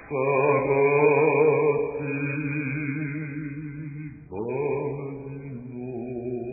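Liturgical chant sung in long held notes, with a short breath and a new phrase beginning about four seconds in.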